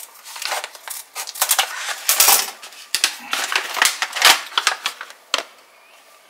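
Scissors snipping through a foil-lined kraft-paper coffee bag, then the bag crinkling and crackling as it is pulled open, in an irregular run of sharp crackles that stops about five seconds in.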